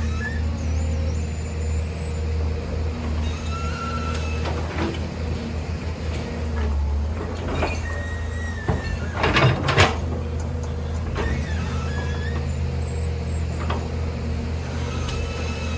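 Heavy machinery's engine running steadily, with short high squeaks here and there and a burst of knocks about nine seconds in.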